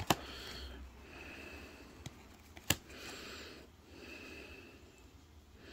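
A person breathing in and out through the nose close to the microphone, about four breaths, with a few sharp clicks, the loudest a little under three seconds in.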